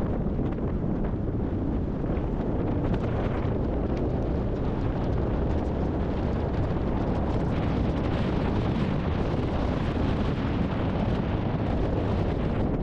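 Strong thunderstorm wind buffeting the microphone, a steady rumbling rush with faint crackles through it.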